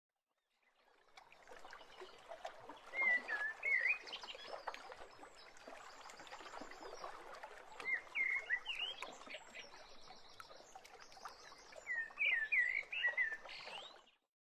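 Songbird chirping in three short bursts of quick, warbling notes over a steady outdoor background. The sound fades in at the start and cuts off just before the end.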